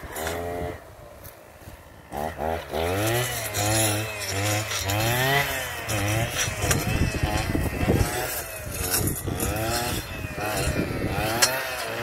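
A petrol brushcutter's engine revs up and down over and over as it cuts through brush. It runs quieter for about the first two seconds before the repeated revving starts.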